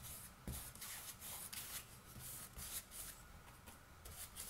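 A flat paintbrush stroking dark paint onto a hardcover book's textured cover: a faint, irregular run of short, scratchy brush strokes.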